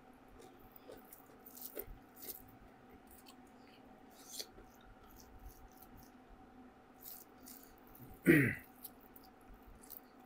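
Quiet eating sounds: scattered faint clicks, taps and chewing over a faint steady hum. About eight seconds in comes a person's short vocal sound.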